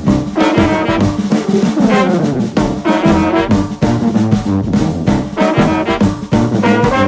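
Background music: a jazzy tune with brass horns over a steady drum beat.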